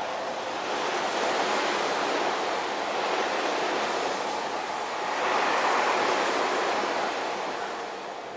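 Electric commuter train running past close by: a steady rush of wheel and rail noise that swells about five seconds in, then fades near the end as the last cars go by.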